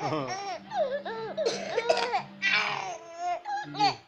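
Baby laughing in a run of high, squealing bursts, with babbling sounds in between.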